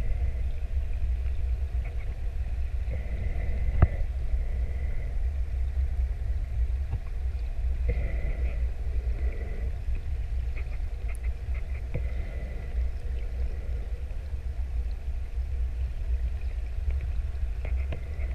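Underwater ambience picked up through a camera housing: a steady low rumble, with faint scattered ticks and one sharper click about four seconds in.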